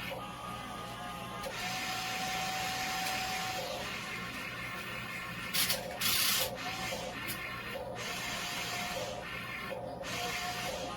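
Small electric motors of a remote-control toy truck whirring, with faint short electronic tones, and a loud noisy burst about six seconds in.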